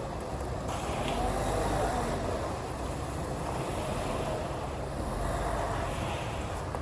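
Diesel engine of a concrete truck running steadily, its pitch slowly rising and falling, under a steady rush of outdoor noise.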